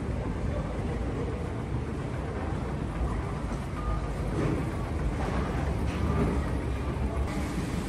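Moving walkway in an airport terminal running: a steady low rumble with the hum of the concourse around it.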